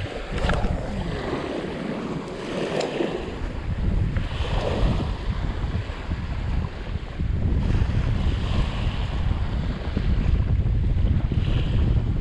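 Wind buffeting the microphone, with small waves washing up on a sandy shore every few seconds.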